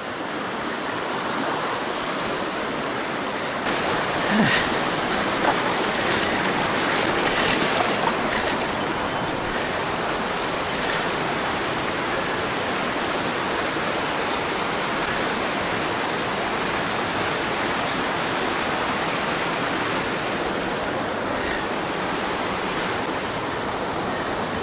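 Mountain stream running over rocks and small riffles: a steady, even rush of water. A couple of brief faint knocks about four and five seconds in.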